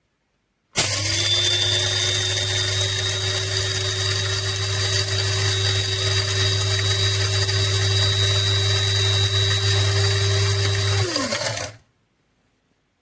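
KYG 200 W electric blade grinder running: the motor starts abruptly about a second in, holds a steady high whine for about ten seconds, then is switched off and winds down quickly.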